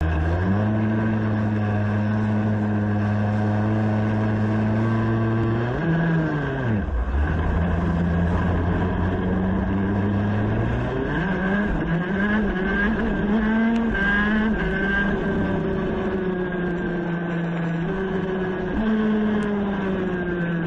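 Racing kart engine heard on board, idling steadily, then a quick blip of revs about six seconds in. From about eleven seconds the revs climb and waver as the kart pulls away, and the engine settles into a steady high-rev note on the track.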